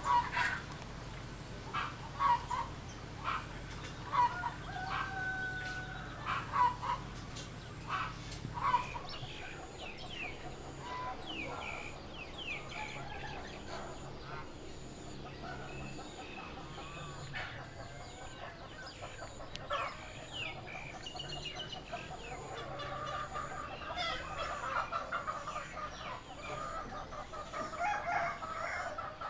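Chickens clucking and a rooster crowing, with small birds chirping in between.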